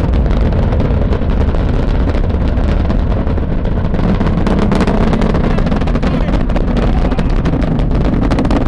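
Space shuttle Atlantis climbing under its solid rocket boosters, heard from miles away as a loud, steady low rumble with crackling.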